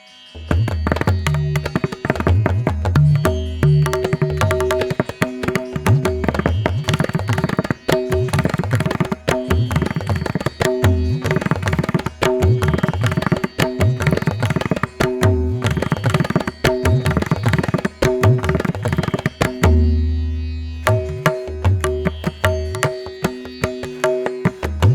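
Instrumental background music with a fast, dense percussion rhythm over held steady tones and deep bass notes; it starts abruptly just after the beginning.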